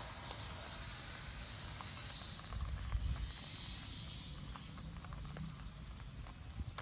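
Wood fire crackling with scattered small sharp cracks, over a low rumble that swells briefly about three seconds in.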